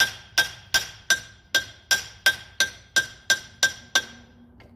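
A hammer striking a steel part of a boom lift's planetary drive hub, about a dozen evenly paced blows, roughly three a second, each with a bright metallic ring. The blows stop about four seconds in.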